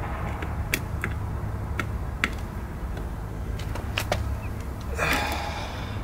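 Scattered light clicks and taps from hands handling a plastic outlet box and its wires, with a brief rustle about five seconds in, over a steady low rumble.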